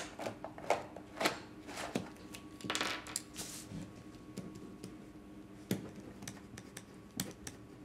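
Index cards being flipped through in a wooden card-file box: a run of light clicks and taps, a short paper rustle about three seconds in, then only a few scattered taps, over a faint steady hum.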